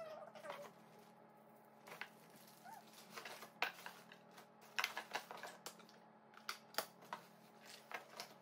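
Zip-top plastic bags of hair clips crinkling and rustling as they are handled in a cardboard box, with scattered sharp clicks of small hard items knocking together. A drawn-out pet's call tails off in the first half second.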